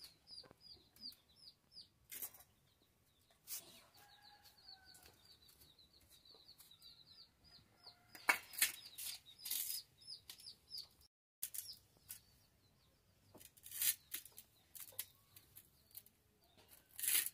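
A small bird chirping in a rapid, steady string of short high notes, several a second, with sharp clinks and scrapes from steel plates and bowls as food is eaten by hand; the clinks are the loudest sounds, bunched a few seconds apart.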